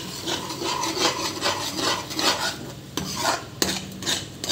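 Metal ladle scraping and stirring ground onion paste in a metal kadhai, about three rasping strokes a second as the paste begins to stick to the pan. Two sharp knocks of the ladle against the pan come about three seconds in.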